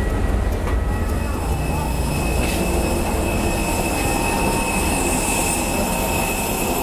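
Low steady rumble of an airport apron bus, joined from about a second in by the high, steady whine of a jet airliner close by on the apron.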